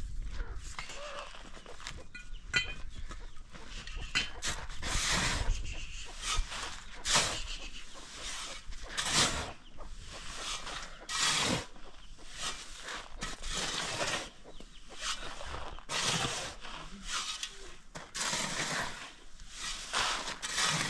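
Chickens clucking, among a series of short rasping noises that come one after another.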